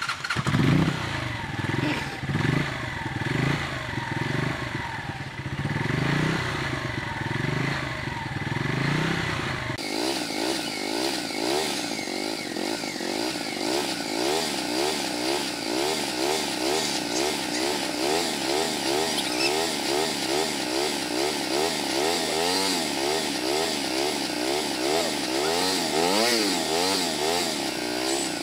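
Cruiser motorcycle engine running and being revved over and over in a regular rise and fall, its exhaust blowing up a large balloon tied over the silencer. About ten seconds in the sound turns brighter and more rasping, the revs still rising and falling in quick succession.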